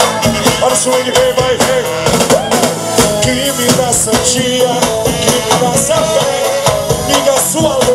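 Live band music with a steady drum-kit beat and saxophone lines.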